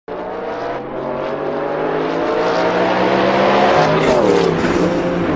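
Car engine accelerating: the revs climb steadily for about four seconds, dip briefly at a gear change about four seconds in, then fall away near the end.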